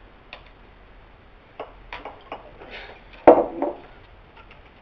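A bottle, glass by its look, being handled and its cap twisted: a series of small clicks and taps, with one louder knock about two-thirds through and a softer one just after it.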